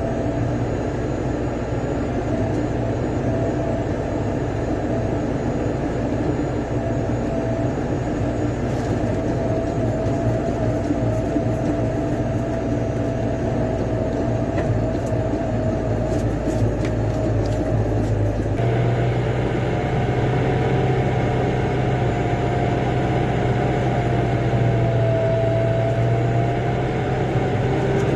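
A vehicle engine running steadily under way, a constant drone. Its tone changes abruptly about two-thirds of the way through and then holds steady again.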